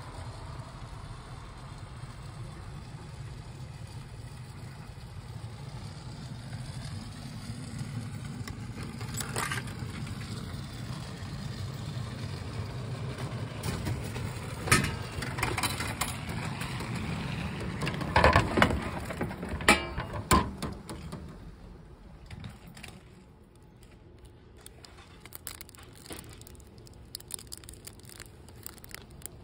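Vending machine being used over a steady low rumble: scattered sharp clicks and knocks, the loudest a cluster a little past halfway. After that it goes quieter, with the light crinkling of a plastic wrapper being handled.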